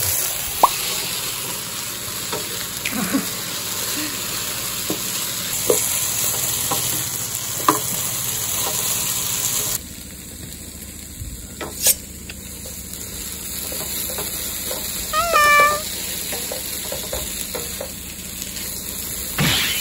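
Food sizzling and frying on a portable gas burner, with a few sharp clicks; the sizzle drops quieter about ten seconds in. About fifteen seconds in, a dog gives a short, high whine.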